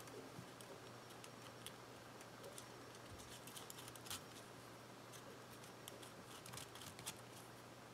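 Faint, scattered light clicks and scratches of a pointed craft pick poking the leftover bits out of a die-cut glitter-paper spider web, the small paper pieces dropping onto the mat.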